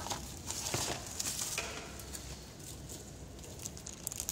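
Plastic courier bag crinkling and rustling as it is handled, in several short bursts over the first second and a half, then fainter.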